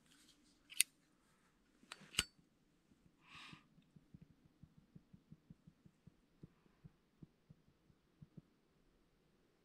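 Handling of a metal flip-top lighter: a few sharp metallic clicks, the loudest about two seconds in, a short rasp about halfway through, then a run of soft, irregular low ticks while the lighter is brought to flame.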